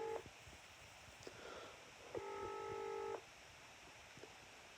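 Telephone ringing tone heard through the phone's earpiece while the call is put through to an agent: steady tones about a second long repeating every three seconds, one ending just at the start and another about two seconds in.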